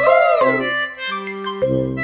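Upbeat background music with held chords and bright bell-like notes. About the first half second a short sound effect swoops up and then back down in pitch over the music.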